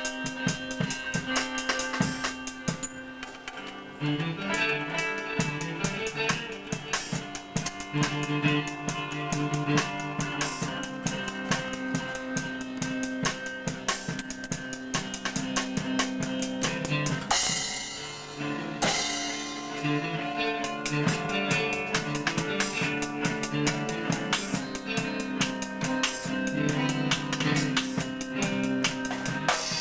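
A rock band playing together: drum kit keeping a beat under electric bass and electric guitar.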